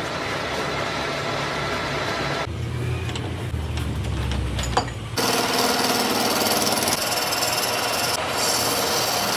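Machine and power-tool noise in three abruptly cut sections: a steady noisy hum, then a low rumble with scattered clicks and one sharp knock, then a louder, denser grinding-like noise with steady tones.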